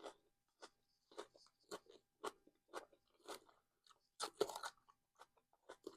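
Close-up chewing of a mouthful of salad: crisp crunches repeated about twice a second, loudest a little past four seconds in.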